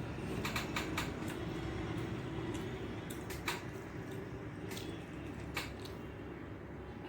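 Close-miked eating sounds: chewing and sharp mouth clicks and smacks of someone eating a rice meal, a cluster in the first second and single ones scattered after, over a steady low background noise.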